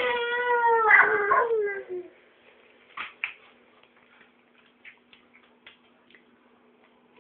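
A toddler's long wailing cry that falls steadily in pitch over about two seconds, followed by a few light taps and clicks.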